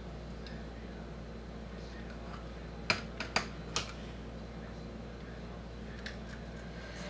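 A quick run of four sharp clicks about three seconds in, and one faint click later, from a fillet knife working along a bluegill's backbone on a cutting board, over a steady low hum.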